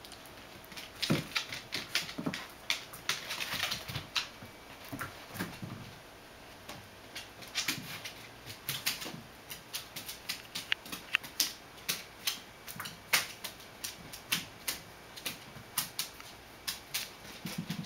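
A beagle's claws clicking and tapping on hardwood and tile floor as it scrambles after and noses a tennis ball: a dense flurry with a few dull thumps in the first few seconds, then a steadier run of several clicks a second.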